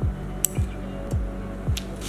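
Background electronic music with a steady deep kick-drum beat about twice a second, over held low tones, with two sharp clicks.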